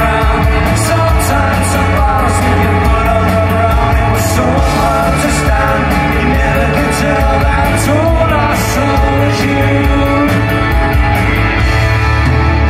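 Live indie rock band playing through a loud PA: a male singer over electric bass, guitars and drums, with a steady beat of cymbal hits.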